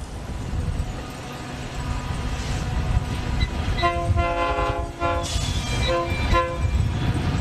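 A train's multi-chime air horn sounding one long blast and then a shorter one, over the low rumble of the moving train.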